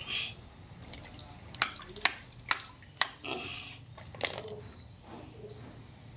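Carp being handled and cleaned over a basin of water: about half a dozen sharp clicks in the first four seconds, with small wet splashes and dripping between them.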